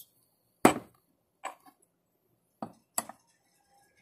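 Four short, sharp knocks of small hard objects being handled or set down, the first and loudest about half a second in, two close together near the end.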